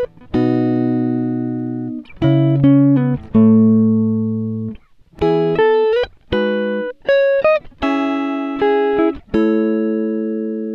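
Background music: plucked guitar notes and chords, each struck and left to ring out and fade before the next.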